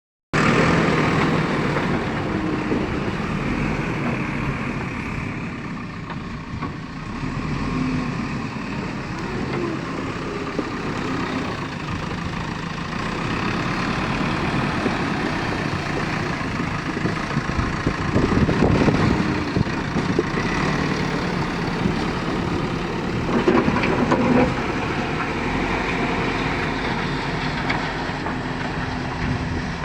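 JCB 3DX backhoe loader's diesel engine running steadily while working, swelling louder twice in the second half.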